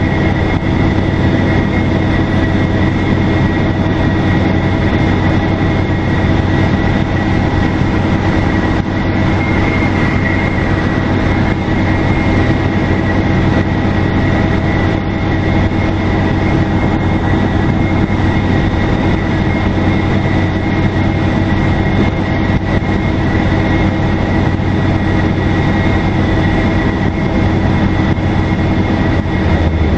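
Detroit Diesel Series 50 diesel engine of a 2002 NABI 40LFW transit bus running at a steady cruise. A high, steady turbocharger whistle sits over the low engine drone.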